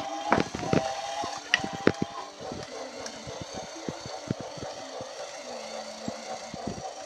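Battery-powered toy train running on plastic track: a steady small-motor hum with a string of clicks as the wheels cross the rail joints, the sharpest clicks in the first two seconds.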